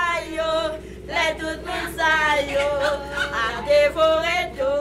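A group of women singing together loudly, unaccompanied, with long held notes that waver in pitch.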